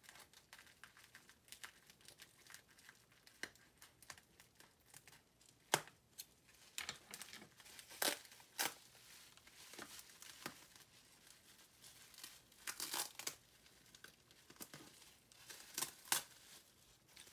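Gift packaging being unwrapped by hand: irregular crinkling and tearing of wrapping, with a few sharper rustles now and then.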